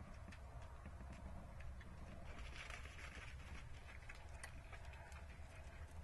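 Faint rustling and scattered small clicks of a greater kudu browsing, pulling at leaves and twigs, with a brief burst of leaf rustle about two and a half seconds in, over a low steady rumble.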